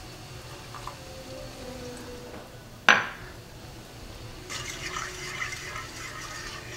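A sharp knock about three seconds in, then liquid poured and splashing into a pan for a few seconds as saffron is added to the sauce.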